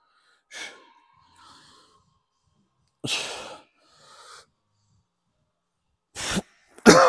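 A man breathing hard through a set of dumbbell reps: a string of sharp, forceful exhales that grow louder, the loudest one near the end strained and voiced.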